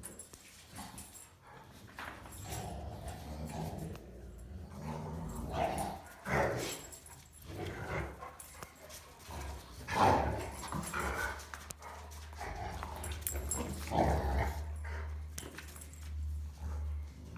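Rottweilers making play noises: scattered whines and yips, with the loudest call about ten seconds in, over a low steady rumble.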